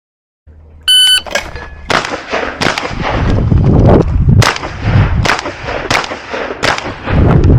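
A shot-timer start beep about a second in, then a string of 12-gauge shotgun shots fired in quick succession, roughly one every half to one second, as a competition stage is shot.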